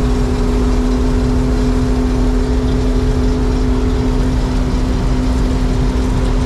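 John Deere 4400 diesel combine running steadily while threshing barley, its engine and machinery making a loud, even drone with a steady hum.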